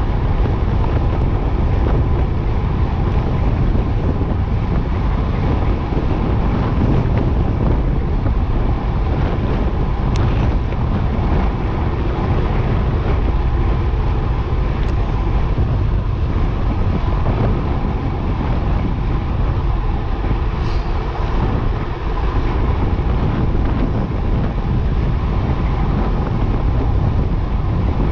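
Steady, loud wind noise buffeting an action camera's microphone on a fast road-bike descent, mixed with the hum of bicycle tyres on asphalt.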